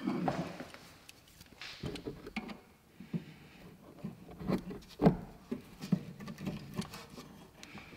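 Small metallic clicks, taps and scrapes of hands and pliers working the handbrake cable off the rear brake caliper of a VW Golf 5, scattered and irregular, the loudest about five seconds in.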